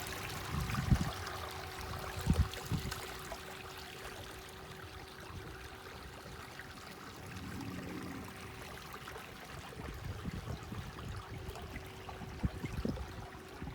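Water rushing and trickling along a trimaran's hulls, over a faint steady whine from a small electric outboard motor. A few low thumps of wind on the microphone come about a second in and again near two seconds.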